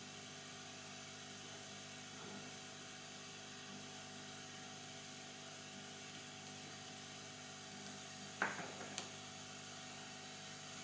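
Steady low whir of bench equipment running, with one sharp tap of a small tool about eight seconds in and a lighter tap just after.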